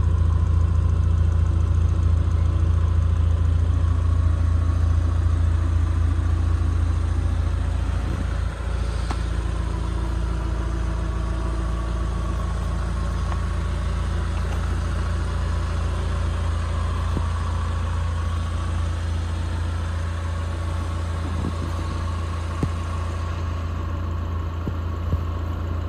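Mazda MX-5-based four-cylinder engine of an Exocet kit car idling steadily. It is a little quieter from about eight seconds in.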